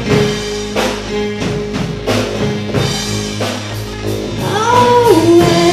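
A rock band playing live: electric guitar over a drum kit keeping a steady beat, with a held note that bends up and down in pitch near the end.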